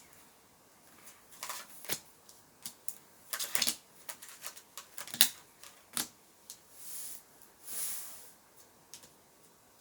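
Tarot cards being handled and laid out on a surface: a string of irregular light clicks and short swishes as cards are flipped and slid into place.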